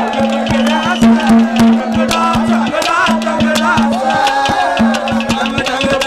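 Live Haryanvi ragni folk music played without singing: a fast drum beat under a melody, with a held low note that drops out now and then.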